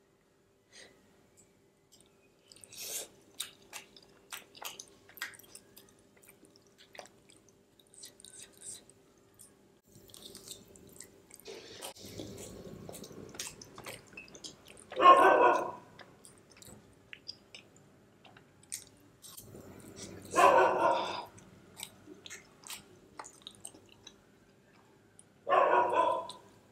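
Close-miked eating sounds as creamy macaroni and cheese is scooped from a glass bowl and chewed: small scattered clicks of the fork and spoon, then three louder bursts about a second long and five seconds apart. A faint steady hum runs underneath.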